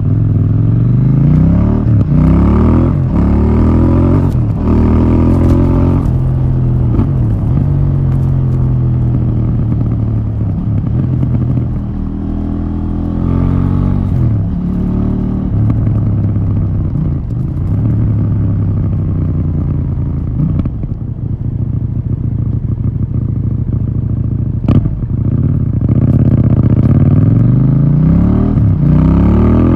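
KTM 790 Duke's parallel-twin engine on its stock exhaust, pulling through the gears: the engine note climbs in pitch and drops back at each shift, several times in a row, with stretches of steady running between. A single sharp click comes about 25 seconds in.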